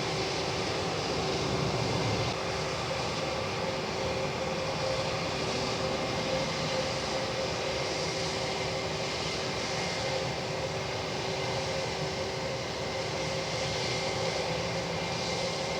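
Jet airliner engines idling, a steady rushing hum with a constant whine held through.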